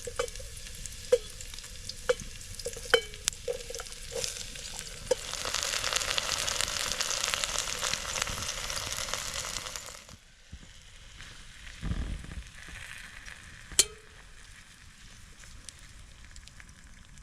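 Onions and mushrooms frying in a pan over a campfire, with a metal utensil tapping and ringing on the pan as they are stirred. Around the middle the sizzle grows loud for a few seconds, then drops away suddenly. A low thump and a sharp click follow.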